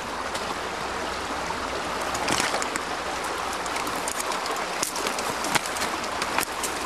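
Creek water running over rocks: a steady rushing wash, with a few short crackles now and then.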